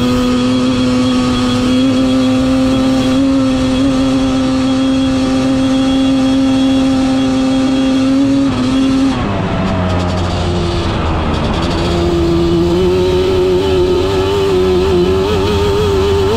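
Yamaha Banshee's two-stroke parallel-twin engine running at high revs under way. It holds a steady pitch for about eight seconds, drops off sharply about nine seconds in, then picks up and climbs in pitch again toward the end.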